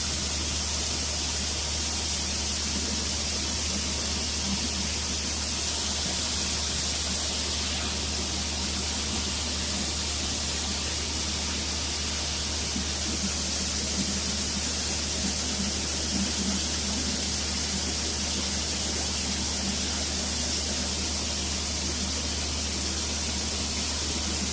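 Tractor running as heard inside its cab: a steady low engine hum under an even, rushing hiss that does not change.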